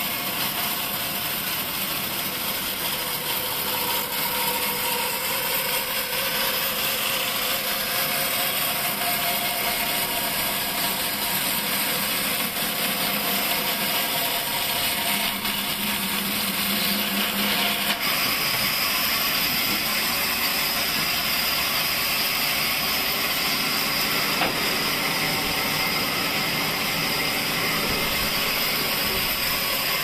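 Large vertical bandsaw running and ripping lengthwise through an old pine beam: a steady, loud, hissing cut with the machine's hum underneath.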